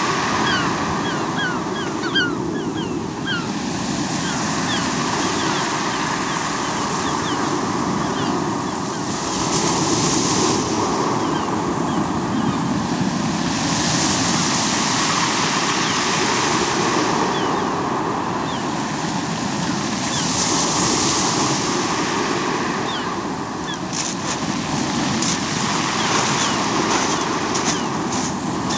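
Sea waves breaking and washing up a pebble beach, the surf swelling every few seconds.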